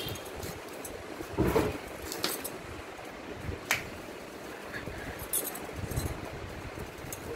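Pineapple rind being sliced off against a bonti, a curved blade fixed upright on a stand, as the fruit is pushed and turned against the edge. A few sharp cutting clicks and knocks stand out over a low background, the loudest about a second and a half in.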